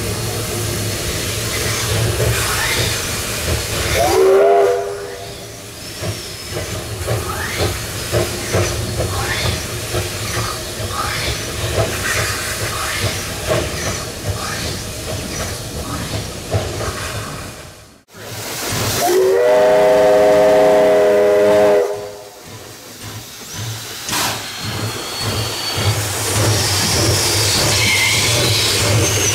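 Steam whistle of a two-foot gauge Hudswell Clarke locomotive: a short blast about four seconds in and a longer blast of about three seconds later on, each rising in pitch as it opens. Between them the locomotive works on with steady hissing steam.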